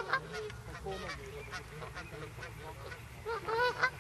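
Waterfowl calling in a run of short, repeated honks, bunched together and loudest near the end.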